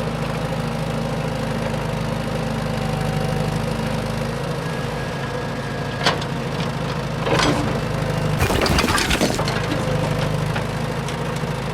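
A steady engine drone. It has a sharp crack about six seconds in, and a burst of crunching, breaking noise about eight to nine seconds in.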